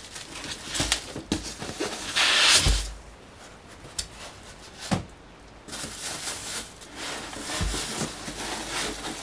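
Bubble wrap and plastic packaging crinkling and rustling as a coiled EV charging cable is lifted out of a cardboard box, with one loud crinkle about two seconds in and a couple of sharp knocks around four and five seconds.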